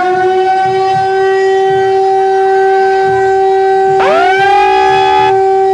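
A siren holds a steady tone after winding up. About four seconds in, a second siren tone sweeps up quickly over it and cuts off suddenly a little over a second later.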